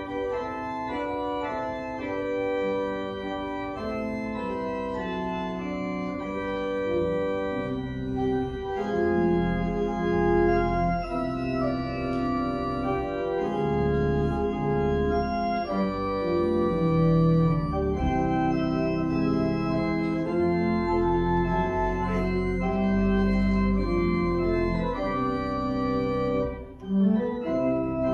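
Church organ playing a slow piece of sustained, shifting chords, dipping briefly near the end.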